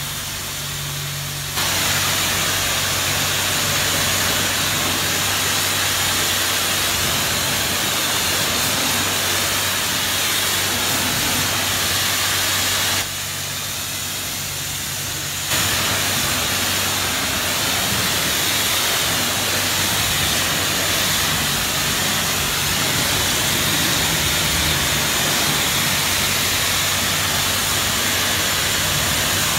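Pressure-washer lance spraying water onto a car's paintwork: a loud, steady hiss over a steady low hum. The spray cuts out about a second and a half in and again for a couple of seconds about halfway through, then resumes.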